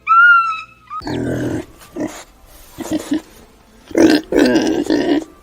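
A pig grunting and oinking in rough bouts, after a short whistle-like tone in the first second.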